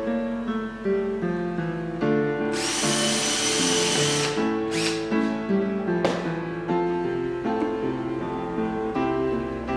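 Makita cordless drill driving a screw, in one run of about two seconds starting about two and a half seconds in, then a short burst about a second later. Background music plays throughout.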